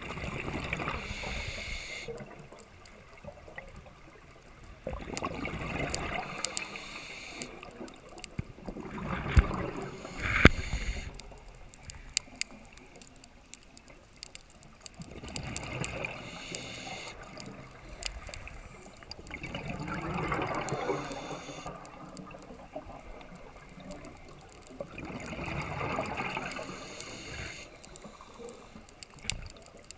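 Scuba diver breathing through a regulator, heard underwater: bursts of exhaled bubbles gurgling, each followed by a short hiss, in about six breaths evenly spaced roughly five seconds apart.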